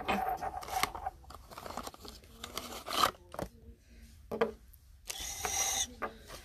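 Small figurines being handled and set down on a hard tabletop: scattered light clicks, taps and scrapes, with a brief rustle of cardboard packaging about five seconds in.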